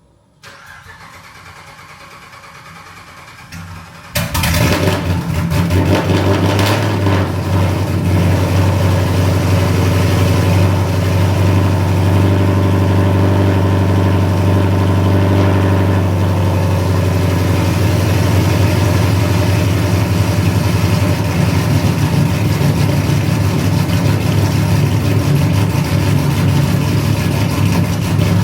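Corvette Z06 V8 cold start: a quieter hum for a few seconds, then the engine catches about four seconds in and settles into a loud, steady cold idle.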